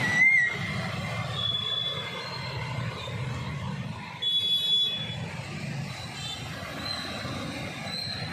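Street traffic wading through floodwater: motorcycle and car engines running, with water swishing and splashing under the tyres. A few short high-pitched tones sound over it, one about half a second in, others around two and four and a half seconds in.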